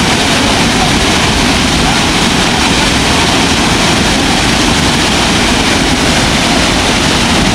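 Rushing water of a waterfall: a loud, steady, even hiss with no breaks or changes.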